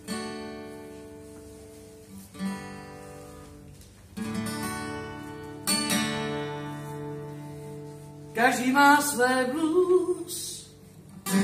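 Acoustic guitar strumming the opening chords of a blues song. Four chords about two seconds apart, each left to ring and fade. About eight seconds in, a woman's singing voice comes in over the guitar.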